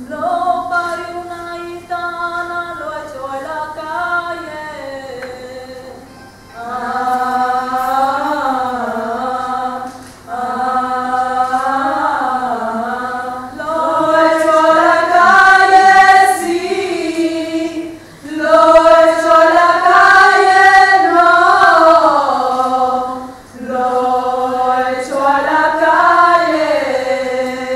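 A small group of women singing a slow melody unaccompanied, in several long phrases with short breaks between them.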